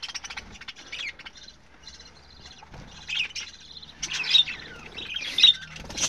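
A flock of budgerigars chattering with many quick chirps, with louder squawking calls in the second half.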